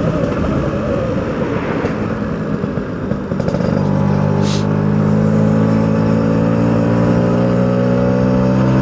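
Two-stroke engine running under way. For the first few seconds the sound is rough and noisy; a little under four seconds in it settles into a clear, steady engine note that rises slowly in pitch as the machine gathers speed. A short hiss comes about half a second after the note settles.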